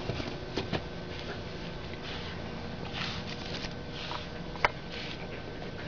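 Pug puppies moving about: light scuffling, scattered clicks and short snuffling noises, with one sharper click about four and a half seconds in.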